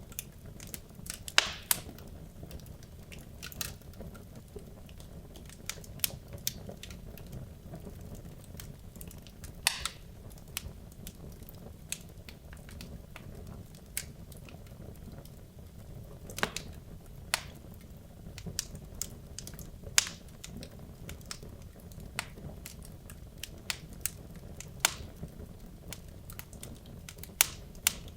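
Wood logs burning in a fireplace: irregular sharp crackles and pops, a few much louder than the rest, over a steady low rumble of the flames.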